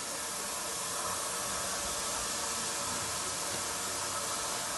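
Steady hiss of steam escaping from a steam locomotive standing at a station, heard from a passenger carriage.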